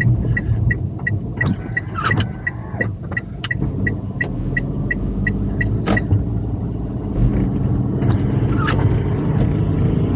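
Kei-truck camper's engine running as it drives off, heard from inside the cab. A rapid electronic beep sounds about three times a second and stops about five seconds in, with a few sharp knocks along the way.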